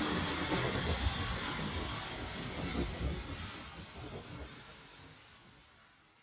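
Gas pressure washer running: a steady hiss of spray over the rumble of its small engine, fading out to silence.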